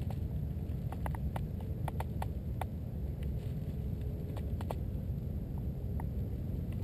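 Low, steady rumble of wind on the camera microphone, with scattered light clicks at irregular intervals, some in quick pairs.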